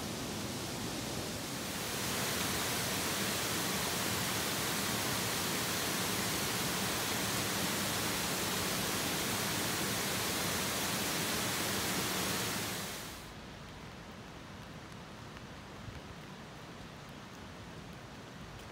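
Water pouring over a low weir: a steady, even rush that cuts off suddenly about 13 seconds in. After it a quieter rain hiss remains, with a few faint ticks.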